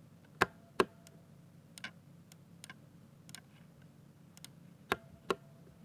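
Keystrokes on a Ducky 60% mechanical keyboard with silver switches: slow, scattered key presses, with two loud clacks about half a second apart near the start and two more near the end, and softer taps between.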